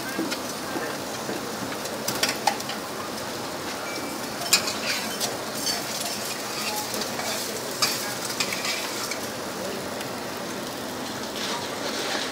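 Pork slices sizzling on a wire grill over a charcoal clay stove, with a few sharp clicks of metal tongs against the grill rack as the meat is turned.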